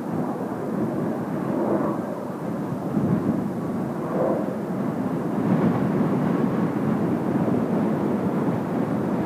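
Jet engines of Blue Impulse Kawasaki T-4 trainers during the landing, heard as a steady low noise that swells and eases a little.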